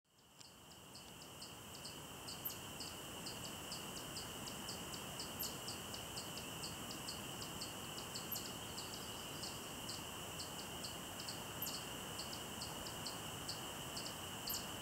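Nature ambience of chirping insects: a steady high drone under a regular chirping about three times a second, with a short, sharper, higher chirp about every three seconds. It fades in at the start.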